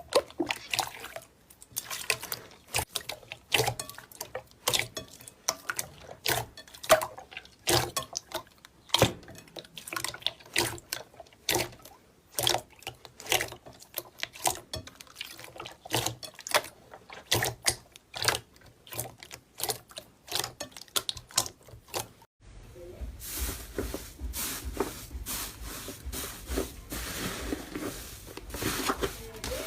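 Slime being squeezed and poked by hand, making wet, irregular clicks and pops several times a second. About 22 seconds in it switches abruptly to a denser, continuous squelching.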